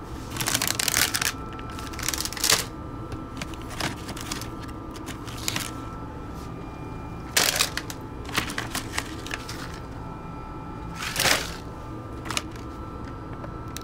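Plastic snack packets crinkling and rustling as they are handled and sorted in a cupboard, in several short bursts. A steady hum runs underneath throughout.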